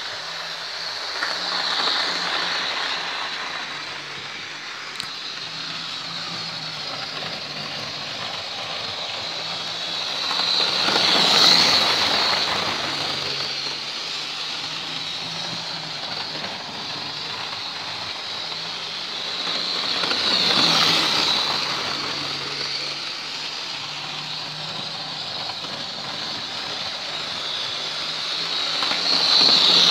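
Electric model train running on the layout's track: a steady whirr of the motor and wheels, with a low hum, swelling louder about every nine seconds as it passes close by on each lap.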